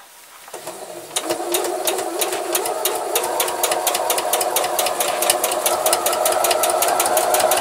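Domestic electric sewing machine stitching a straight topstitch line: a steady motor whine with rapid, even ticking of the needle, starting about half a second in.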